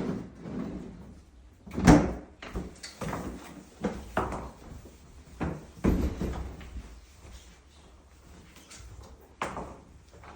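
A series of sharp knocks and bangs from heavy household items being handled, about half a dozen spread irregularly, the loudest about two seconds in.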